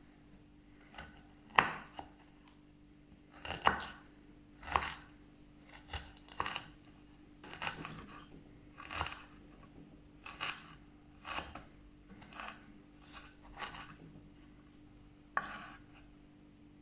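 Kitchen knife chopping fresh ginger on a wooden cutting board: a slow, uneven series of sharp knife strikes on the board, roughly one a second.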